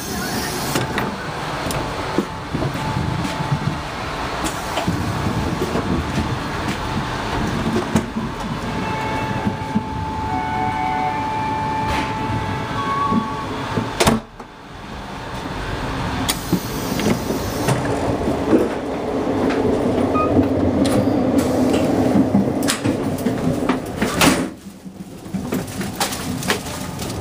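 Hokutosei sleeper train running, heard from inside the passenger cars: a steady rumble of wheels on rail with small clicks and rattles. The noise drops away suddenly about halfway through and dips again near the end.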